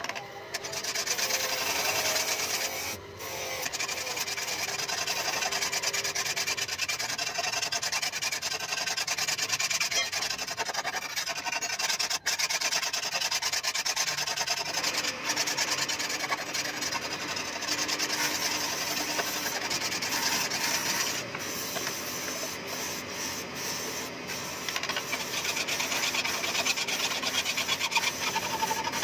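Rapid back-and-forth strokes of a hand sharpening tool scraping along a steel knife blade, one continuous scrape with no breaks.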